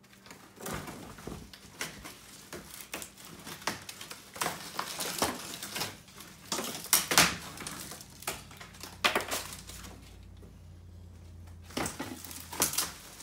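Plaster and drywall debris scraped off a countertop by gloved hands and dropped into a plastic trash can: irregular clatter, knocks and crumbly scraping, loudest about seven and nine seconds in.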